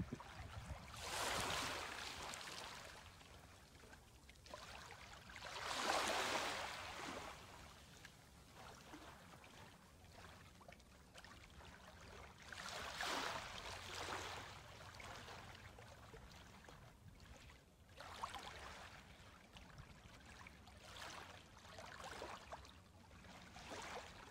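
Small, gentle sea waves lapping onto a sandy beach: a soft wash of water that swells and fades every few seconds.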